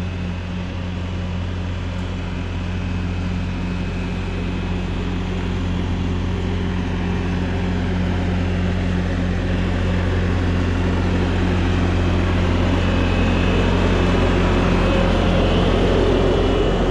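Bobcat compact track loader's diesel engine running at a steady speed while the machine drives on its tracks, growing gradually louder as it comes closer; a thin high whine joins in during the second half.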